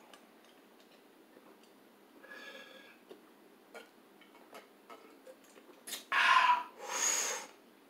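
A man drinking from an insulated water bottle: quiet gulps with small clicks of swallowing, then two loud breathy 'aah' exhales of refreshment about six and seven seconds in.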